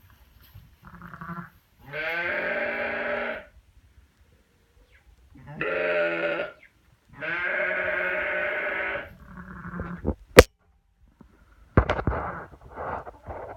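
Lamb bleating: a short call, then three long wavering bleats. About ten seconds in there is a single sharp click, and a few short scuffling noises follow near the end.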